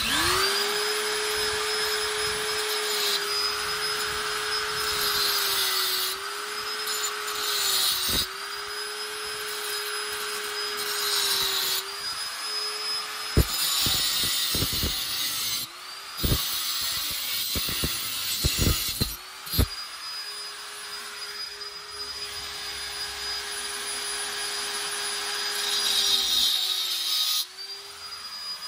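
Electric motor spinning up sharply and running at a steady high whine. Its pitch dips briefly and recovers several times as the speed is eased off and brought back, and a run of sharp clicks or knocks comes between about 13 and 20 seconds in.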